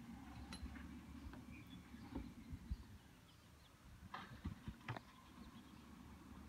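Faint outdoor street ambience: a low, distant rumble with a few soft clicks about four to five seconds in.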